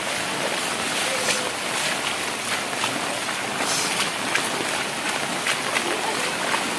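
Heavy rain and overflowing floodwater: a steady rushing hiss with scattered splashes and drops.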